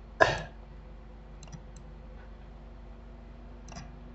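Computer mouse clicks while picking a colour: one sharp, loud click about a quarter second in, then a few faint clicks later, over a steady low hum.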